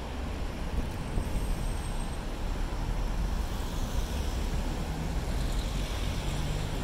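Steady outdoor noise of a city square: traffic hum and the hiss of a fountain, with a low wind rumble on the microphone.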